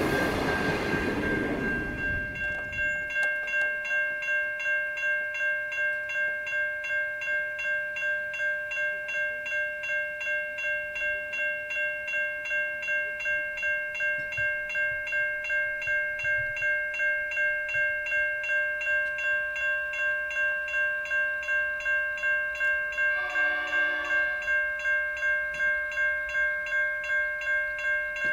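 A passing train's carriages rolling away in the first two seconds, then railway level crossing bells ringing steadily at about two strikes a second. About 23 seconds in, a distant locomotive horn sounds briefly over the bells.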